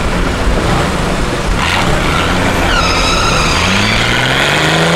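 Off-road 4x4 truck engines running under load on a steep dirt climb, with a short hiss about two seconds in and a high whine joining about three seconds in. Near the end one engine revs up, its note rising.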